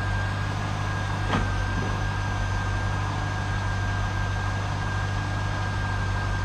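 C5 Corvette's 5.7-litre V8 idling steadily with a low, even hum, and a single click about a second and a half in.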